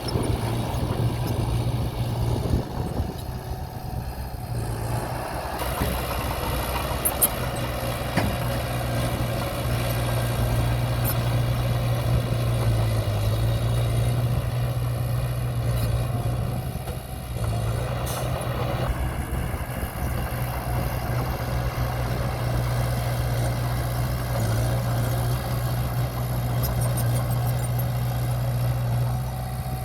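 Diesel engine of earthmoving equipment running steadily, with extra mechanical noise from about five seconds in that eases off around seventeen seconds, and a few light clicks.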